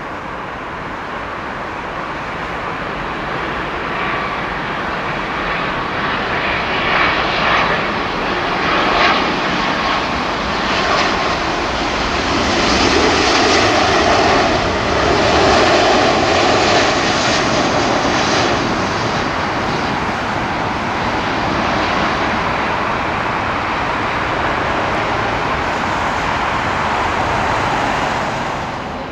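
Boeing 777-300 airliner's twin jet engines on landing, a steady rushing noise that swells to its loudest about halfway through as the aircraft passes low over the runway, then carries on as it rolls out.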